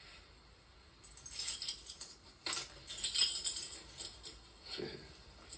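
Metallic jingling and rattling in irregular bursts, loudest about three seconds in, with a short lower sound near the end.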